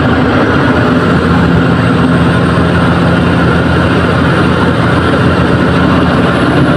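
Heavy goods truck driving along the road: its diesel engine running steadily with a low hum under loud, even road and wind noise.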